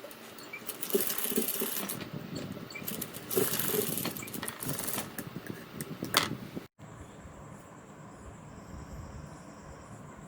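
Sewing machine stitching in several short runs, full of clicking, as a rough tacking seam is run along the blouse. About two-thirds of the way through it cuts off abruptly to a quiet, steady hum.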